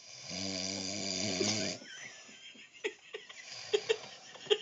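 A man snoring: one long, low snore lasting about a second and a half, then quieter, with a run of short sharp clicks starting about three seconds in.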